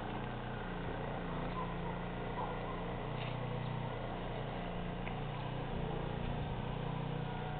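A steady low hum from a distant engine over outdoor background noise.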